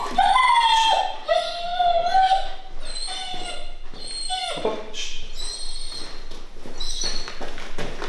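German Shepherd whining: a run of high-pitched, drawn-out whines that slide up and down in pitch, with short breaks between them, and a few light clicks near the end.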